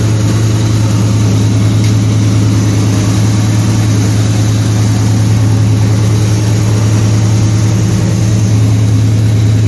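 1985 Chevrolet Camaro engine idling steadily through its new exhaust.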